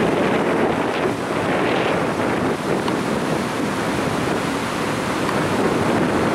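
Ocean surf washing onto a beach, a steady rushing noise, with wind buffeting the microphone.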